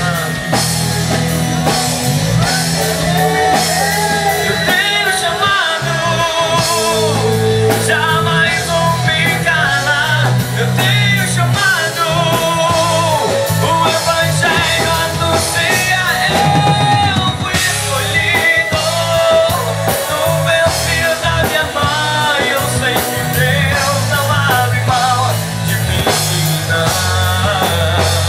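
Christian rock band playing a song, with a lead singer's wavering melody over drum kit, bass and guitar.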